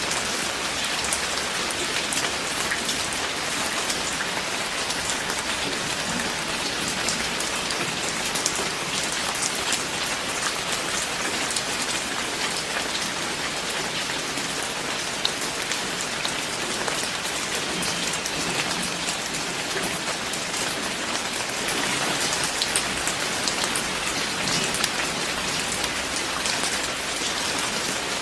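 Steady rain falling, with many individual drops ticking close by on a surface. It grows a little louder about two-thirds of the way through.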